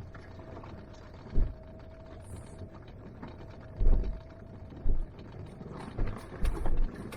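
Vehicle driving on a rough dirt road, a steady low rumble broken by several short, heavy thumps.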